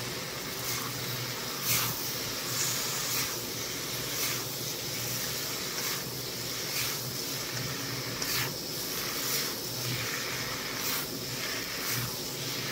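A stir-fry of shrimp, broccoli and wood-ear fungus sizzling in a pan, with short scrapes about once a second as it is tossed. The shrimp are nearly cooked, and the wood ear has just gone in.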